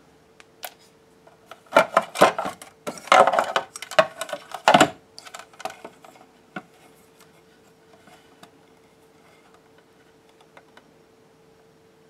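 Clattering clicks and knocks for about three seconds, starting a couple of seconds in, then a few scattered light clicks: plastic fume-extractor housing and wires being handled during soldering. A faint steady hum runs underneath.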